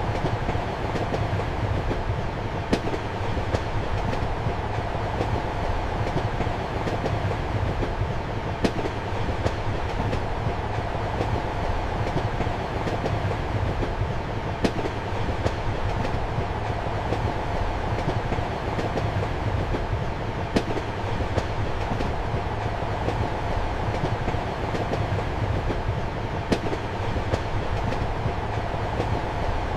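Passenger train running steadily, heard from inside a compartment: a constant rumble and hum, with sharp clicks of the wheels over rail joints about every six seconds and fainter ticks between.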